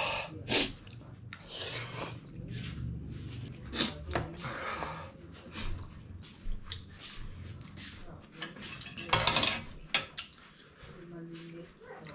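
A person eating noodles: slurping and chewing, with a fork and spoon clinking against a ceramic plate. A short, louder burst comes about nine seconds in.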